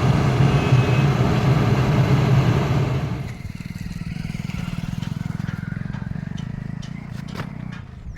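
A large engine running loudly, then dropping to a quieter, steadier run about three seconds in, with a few sharp clicks near the end.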